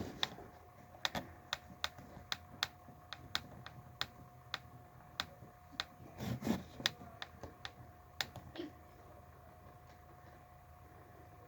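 Chewing a sub sandwich close to the microphone: a run of sharp, irregular mouth clicks and lip smacks, about one or two a second, with a fuller chewing sound about two-thirds of the way through, then the clicks stop.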